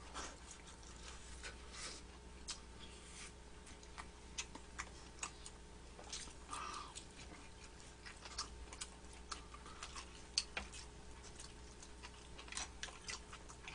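Faint eating sounds: chopsticks clicking irregularly against dishes and food, with soft chewing of bulgogi and kimchi-jeon.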